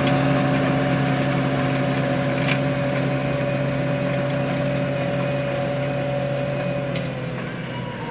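New Holland T7 tractor's diesel engine running steadily under load while pulling a mounted stubble cultivator through the soil. The steady hum grows gradually fainter as the tractor moves away, and its pitch dips slightly near the end.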